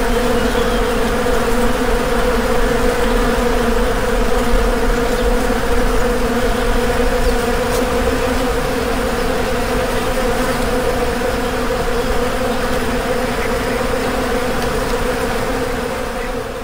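Bees buzzing: a loud, steady, pitched drone that holds unchanged and begins to fade near the end.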